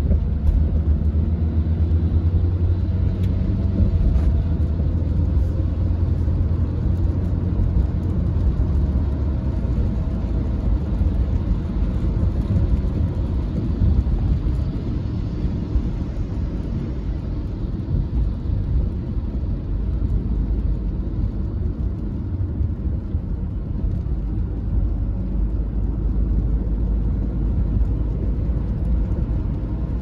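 Steady low rumble of a car driving on a wet road, heard from inside the cabin, with a softer wash of noise above it.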